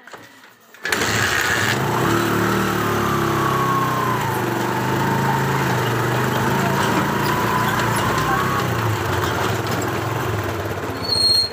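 Small motorcycle engine starting with a sudden onset about a second in, then running steadily. A short, high squeal near the end is the loudest moment.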